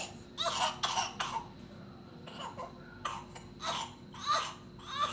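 Repeated wet, phlegmy coughing: a quick run of coughs in the first second or so, then single coughs every half second to a second.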